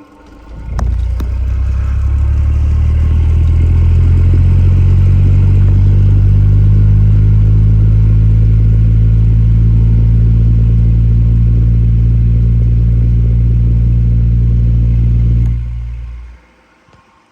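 Stand fan's electric motor giving a loud, steady, deep hum. It starts with a click about a second in and dies away about a second before the end.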